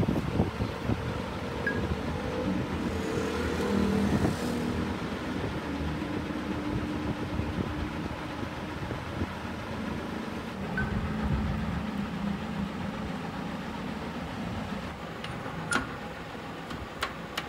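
Steady drone of motor-vehicle engines and road traffic, its pitch wavering, with a few sharp metal clinks near the end.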